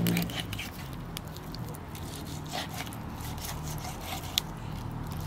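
A knife cutting raw fish flesh away from the bone: wet squishing and scraping with scattered small clicks, one sharper click about four seconds in.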